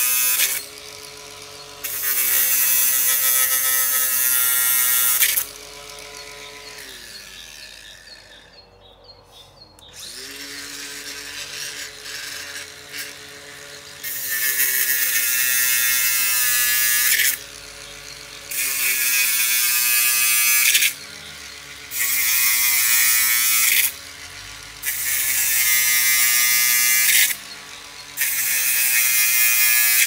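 Handheld power drill boring into the ground, run in repeated bursts of a few seconds with short pauses between them; the motor's pitch dips and recovers as it bites into the soil.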